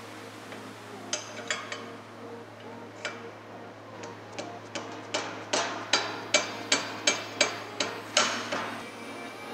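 A hammer striking a steel hinge pin to drive it down into the bushings of a welded steel hinge, metal on metal with a short ring after each blow. A few light, spaced taps come first, then a run of harder blows about three a second in the second half.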